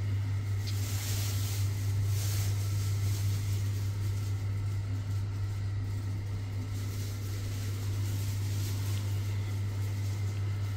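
Steady low hum of room ventilation, with a few brief rustles as the camera is carried.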